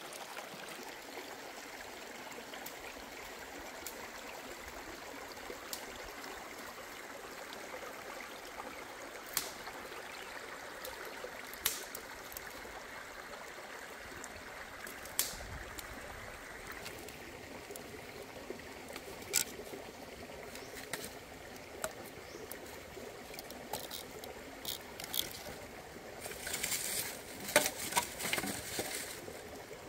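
Shallow stream running over rocks, a steady trickling wash, with scattered small clicks and knocks. Near the end comes a denser cluster of crackling and rustling.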